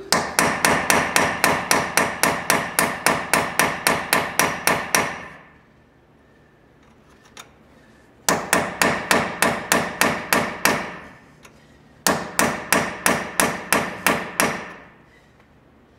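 Hammer driving a steel chisel against the lower ball joint's cap on a Chevy 1500 lower control arm, trying to pop the cap out: rapid ringing metal blows, about four to five a second. They come in three runs of a few seconds each, with short pauses between.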